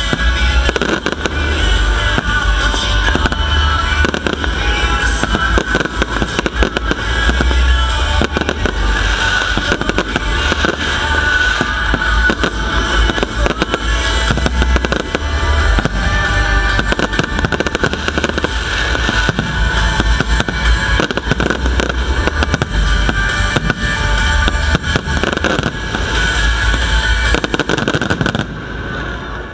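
A fireworks display going off continuously: a dense run of bangs and crackling bursts over loud music. It drops much quieter just before the end.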